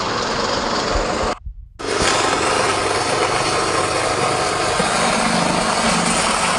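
Motor-driven animal feed mixer and vegetable chopper running steadily. The sound cuts out for about half a second around a second and a half in, then resumes.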